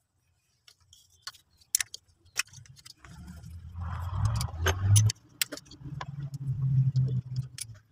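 Scattered metallic clicks and clinks of a ring spanner working bolts and nuts on an engine, with a low rumble underneath from about three seconds in.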